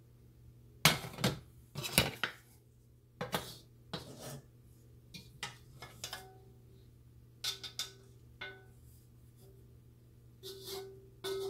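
A wok and metal cooking utensils being handled and clanked, with several sharp clanks in the first four seconds, the loudest about one and two seconds in. Lighter knocks and short metallic rings follow, over a steady low hum.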